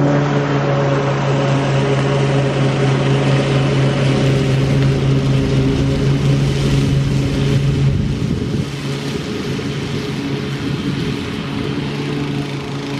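Gas walk-behind lawn mower with a Briggs & Stratton engine (Toro TimeMaster 30-inch) running steadily while cutting grass. It gets quieter about eight seconds in as it moves farther away.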